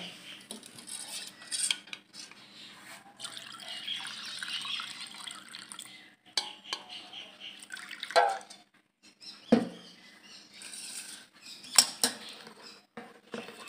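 Chilled milk poured through a stainless-steel mesh strainer into a steel pot, a steady splashing pour over the first few seconds. This is followed by scattered sharp clinks and knocks of steel utensils as the strainer is handled and a steel ladle stirs the pot.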